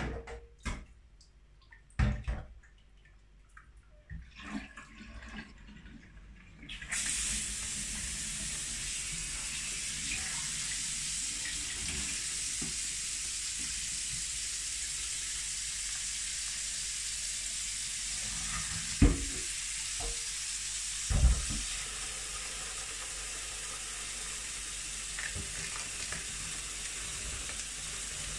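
Kitchen tap turned on about seven seconds in and running steadily into a stainless steel sink, changing the cold-water bath around a pot of hot wort. Scattered knocks and clinks come from the pot and sink being handled, with sharp knocks near the start and a couple more a little past the middle.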